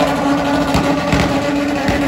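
Car engine on a drag strip held at steady high revs, with a few sharp crackles through the note.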